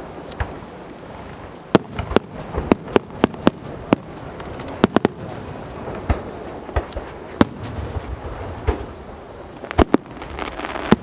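Aerial fireworks shells bursting overhead: about twenty sharp bangs at irregular intervals, thickest between about two and five seconds in, over a continuous low rumble of more distant bursts.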